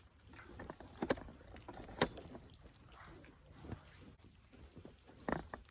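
Water in an ice bath sloshing, with a few short splashes as a person shifts in it, over a low rumble.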